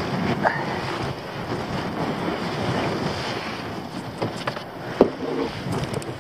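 Wind buffeting the microphone, with a brief squeak near the start and a few sharp knocks, the loudest about five seconds in.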